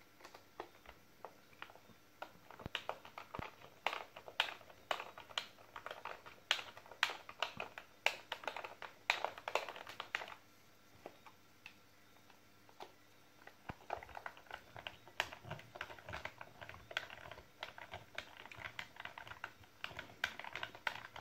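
Small hand screwdriver turning the screws of a plastic cordless-drill battery pack case, with irregular clicks and ticks of the tip in the screw heads and light plastic knocks as the pack is handled. The clicking pauses for a few seconds about halfway through, then resumes.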